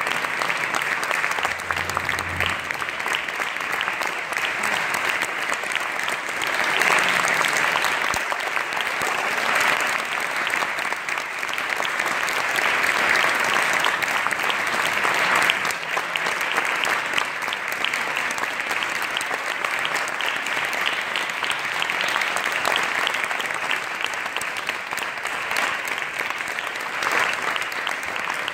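Audience applauding, a dense steady mass of hand claps that swells a little about a quarter of the way in and again around halfway, as the performers take their bows.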